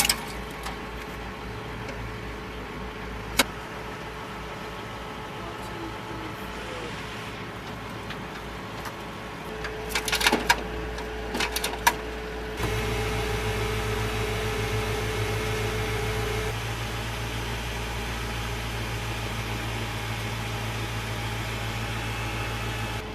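Steady hum of an armored vehicle's motors and machinery, with a sharp metallic click a few seconds in and a short run of clicks about ten seconds in. A steady whine joins about ten seconds in and stops around sixteen seconds, and a louder motor hum starts shortly after twelve seconds and carries on.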